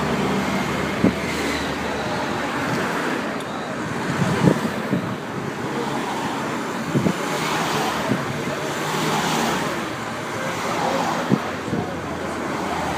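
Race escort and team cars passing one after another, their tyre and engine noise swelling and fading with each car, over roadside crowd chatter. A few short sharp clicks are heard.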